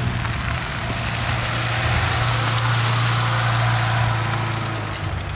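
A small Ford Festiva hatchback's engine running at steady low revs as the car rolls slowly past close by. The hum swells in the middle and fades near the end.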